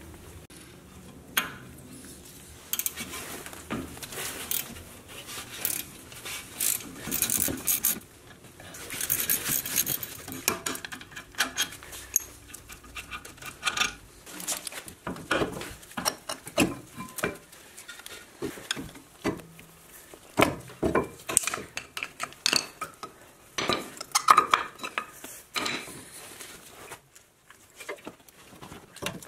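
Metal clicks, clinks and knocks of a socket wrench and brake parts as a front brake caliper is unbolted with a 13 mm socket and the old brake pads are pulled out. Some of the clicks come in quick runs.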